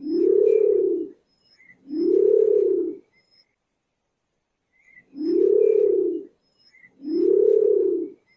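An animal's low hooting call, given four times in two pairs. Each hoot lasts about a second and rises then falls in pitch. Faint high bird chirps sound between the hoots.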